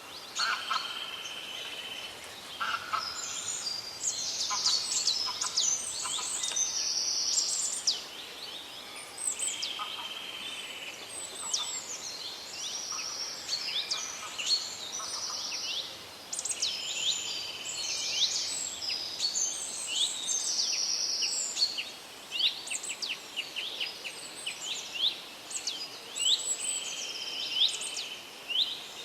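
Several songbirds singing at once: overlapping trills and quick, high downward-sweeping whistled notes, over a faint steady background hiss.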